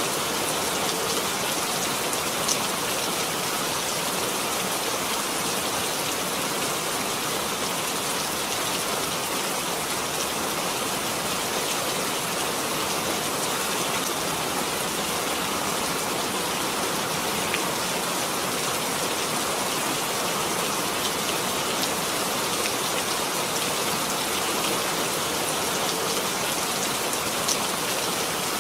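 Steady, heavy rain falling, an even hiss with a few individual drops ticking out now and then.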